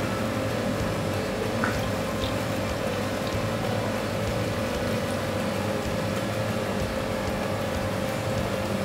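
Wire whisk stirring thin rice porridge in a metal saucepan as milk is poured in from a carton, with liquid sloshing and pouring over a steady hum.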